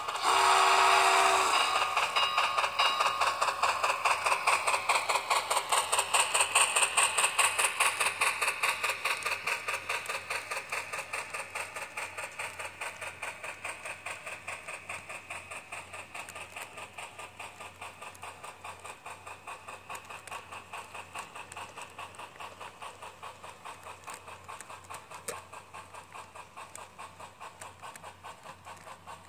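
Model train running by on sectional track: a fast, even clicking rhythm of several beats a second, loudest at first and fading as the locomotive moves away while the freight cars roll past.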